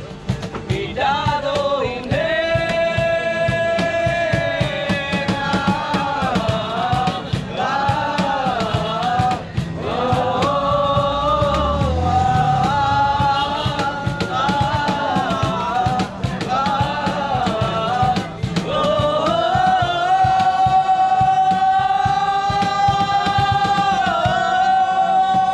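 A song sung to instrumental accompaniment with a steady beat, the voice holding long notes near the end.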